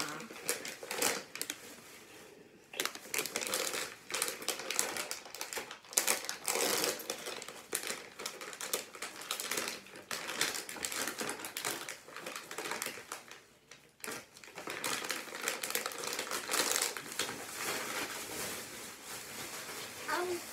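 Snack packaging crinkling and rustling: a wrapper or bag being handled in dense, irregular bursts, with two short lulls.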